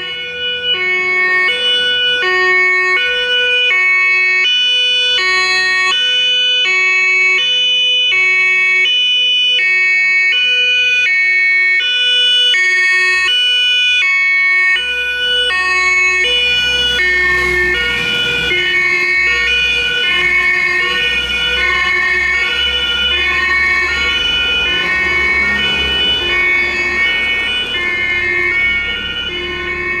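German fire engine's two-tone siren (Martinshorn) sounding loud, swapping back and forth between two pitches about once a second. From about halfway, a low engine rumble and road noise join the siren.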